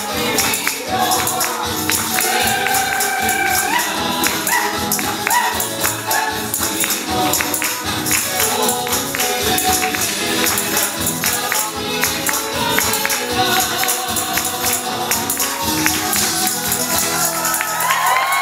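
Chilean cueca music: singing over a fast, steady tambourine rhythm.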